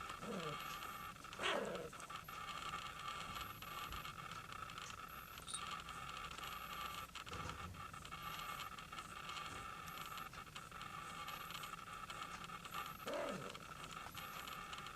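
Cat grooming itself, with rough licking sounds over a steady purr. Twice a short squeak falls quickly in pitch, about a second and a half in and again near the end.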